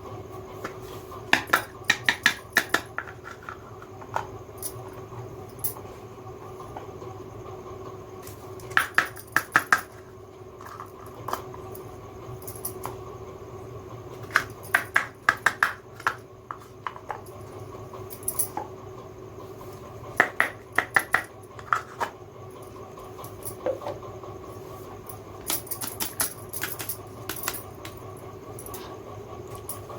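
Small plastic toy kitchen pieces clicking and clattering as they are handled, in short clusters of sharp taps every few seconds, over a faint steady hum.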